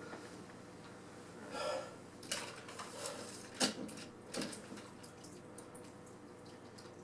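A few light knocks, clicks and clatters of small objects being handled on a table, over a low steady room hum. They come irregularly between about one and a half and four and a half seconds in, then stop.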